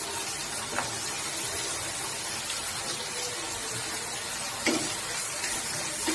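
Kerala prawn roast masala with fried prawns sizzling steadily in a non-stick frying pan. A spatula knocks against the pan about a second in and again near the end.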